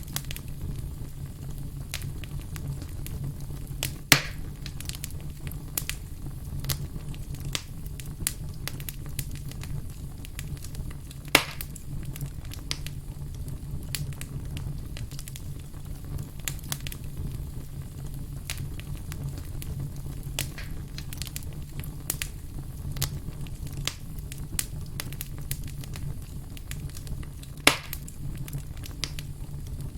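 Wood fire crackling, with a steady low rumble under many small snaps, and three louder pops about 4, 11 and 28 seconds in.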